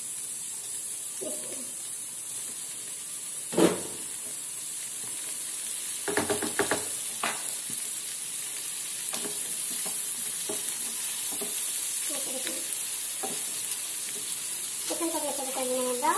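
Onions, garlic and ginger sizzling steadily in hot oil in a non-stick pan as raw chicken pieces are added and stirred in. A sharp knock comes about three and a half seconds in, and a quick run of clatters follows around six to seven seconds.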